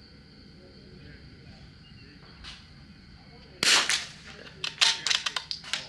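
A single .22 rimfire rifle shot from a Vudoo bolt-action rifle about three and a half seconds in. About a second later comes a quick run of sharp clicks as the bolt is cycled.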